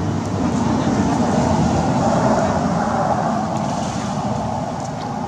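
Road vehicle passing: a steady rushing drone that swells over the first couple of seconds and then slowly fades.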